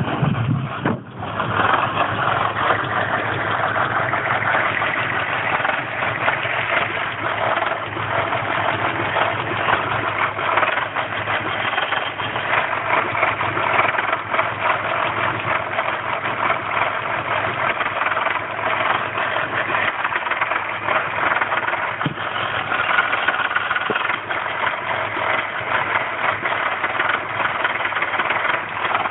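Land Rover Freelander's 1.8 K-series four-cylinder petrol engine idling roughly, with a brief dip about a second in. The roughness comes from a failing fuel pump starving the engine of fuel pressure.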